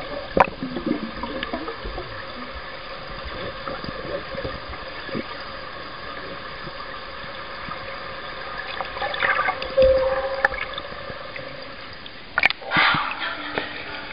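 Water in an aquarium tank heard underwater: bubbling and gurgling over a steady hum, with scattered clicks. It swells louder about nine seconds in, and there is a short burst about twelve seconds in.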